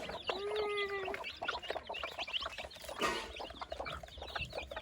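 A flock of chickens calling: a dense chorus of short, high peeps and clucks, with one longer drawn-out call near the start.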